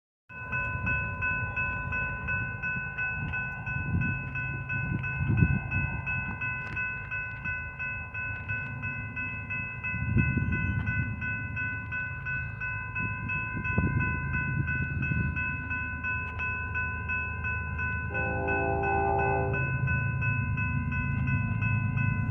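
Railroad grade crossing's electronic warning bells ringing in a fast, even rhythm, signalling an approaching train, over a gusty low rumble. About three-quarters of the way through, a distant locomotive horn sounds once for a second and a half.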